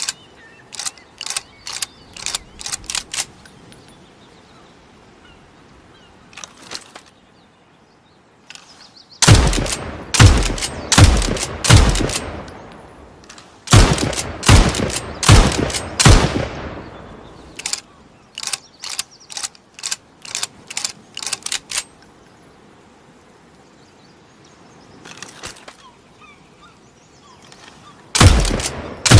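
Winchester rifle firing in two rapid bursts of several shots each, with the second burst leaving a ringing tail. Between the bursts come runs of sharp metallic clicks from the rifle's action, and the shooting starts again near the end.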